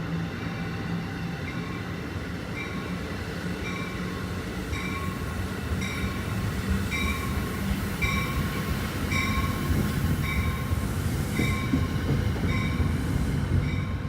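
NJ Transit commuter train running with a steady rumble that grows slightly louder. A short ringing tone repeats about once a second from a few seconds in.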